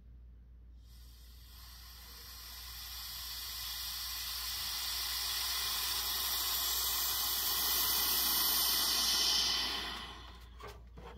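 Air hissing back into an evacuated vacuum chamber through the opened valve, breaking the vacuum. The hiss starts about a second in and grows steadily louder for about eight seconds, then dies away near the end, followed by a few light clicks.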